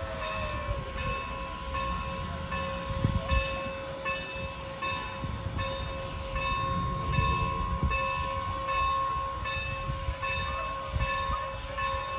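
Steam locomotive with its bell ringing evenly, about two strokes a second, over the low, uneven rumble and chuff of the engine working a passenger train.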